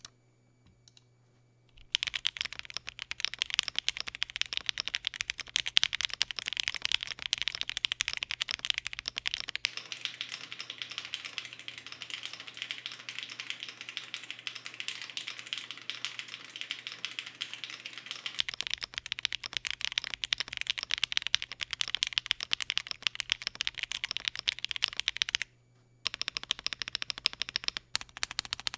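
Fast typing on a Feker Alice 80 mechanical keyboard fitted with Akko Snow Blue Gray switches and 105g0-lubed springs: a dense, continuous stream of key clacks. It starts about two seconds in, stops briefly near the end, then resumes.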